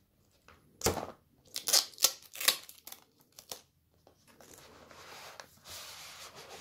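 Cardboard box handled: a few taps and rubs, then, from past the middle, a cardboard sleeve sliding off the inner box with a steady scraping rustle.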